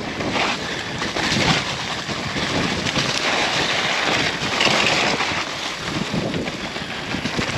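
Mountain bike riding fast down a leaf-covered dirt trail: a steady rush of wind on the microphone over rolling tyre noise and small knocks from the bike.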